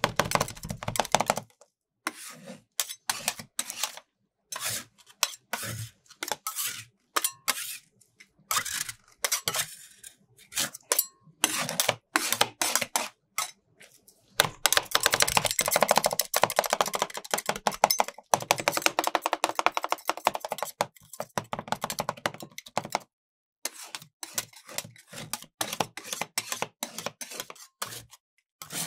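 Two steel spatulas chopping and tapping against a steel rolled-ice-cream cold plate, mixing raspberries and brownie into freezing cream: quick metal clicks in bursts with short pauses. About halfway through comes a long run of fast, steady chopping as the set cream is broken up, and near the end the blades scrape it together into a mound.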